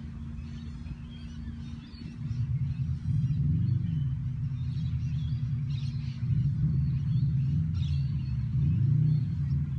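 Steady low rumble that grows louder about two seconds in, with a few short, high bird chirps over it.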